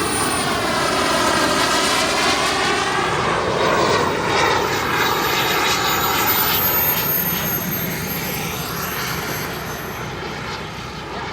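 Radio-controlled model jet flying past with a high whine. The sound swells to its loudest about four seconds in, then fades as the whine slowly drops in pitch.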